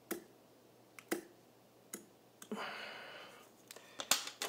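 Several sharp clicks, with a short scraping rustle a little past halfway, from hands working a fly and small tools at a fly-tying vise.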